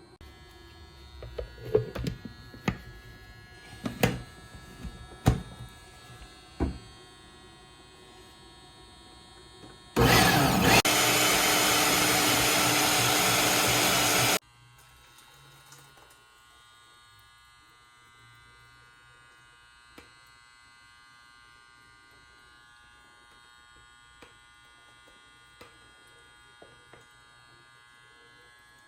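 Several sharp knocks, then a countertop blender runs loudly for about four seconds, blending roasted tomatoes, onion and miltomate with broth into the pepián sauce, and cuts off suddenly. A faint steady hum follows.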